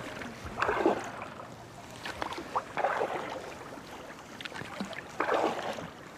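Kayak paddle strokes in river water: three separate swishing splashes about two and a half seconds apart.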